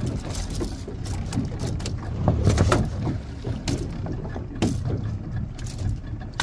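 Open wooden fishing boat on choppy sea: water slapping and knocking against the hull at irregular moments over a steady low rumble.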